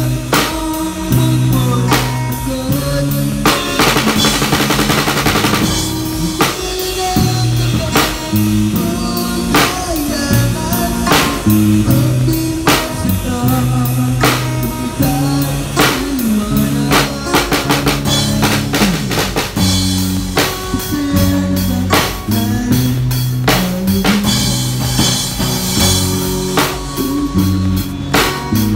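Drum kit played live with sticks, mostly snare, bass drum and cymbals, keeping a steady beat. A guitar and a bass line play along underneath.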